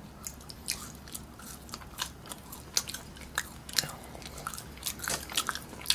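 Mouth chewing McDonald's French fries: a run of quiet, irregular wet clicks and soft crunches.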